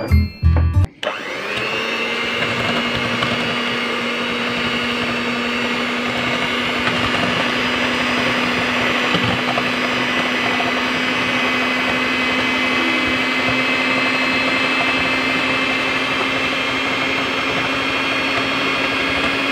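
An electric hand mixer starts about a second in and runs steadily, its beaters whisking eggs and sugar into a batter in an enamel bowl. It gives a constant motor hum whose pitch creeps slightly higher over the stretch. A brief burst of music comes before the mixer starts.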